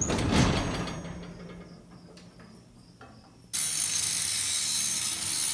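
Angle grinder grinding the steel hay-trolley track joint to chamfer the misaligned track ends where the trolley wheel was jamming. A loud burst right at the start fades over about three seconds, then the grinding cuts in abruptly about three and a half seconds in as a steady, dense hiss.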